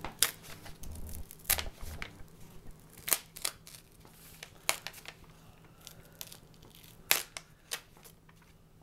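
A plain sheet of white copy paper being creased and torn out of a journal's binding: a series of short, sharp paper crackles and rips at irregular intervals, with soft rustling in between.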